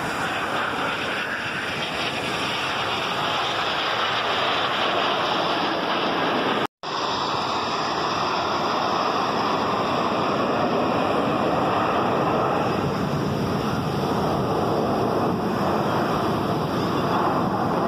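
Steady rushing roar of jet aircraft flying overhead. It is broken by a sudden brief drop to silence about seven seconds in, where the recording cuts.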